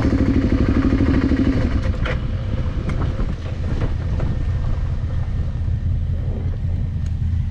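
A motorcycle being ridden on the road: a low engine rumble with wind noise. A clear engine note fades about two seconds in, as the throttle eases, leaving a steady low drone.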